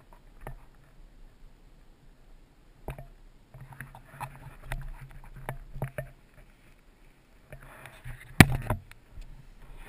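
Rustling and scattered light clicks close to the camera microphone, with one sharp knock about eight seconds in.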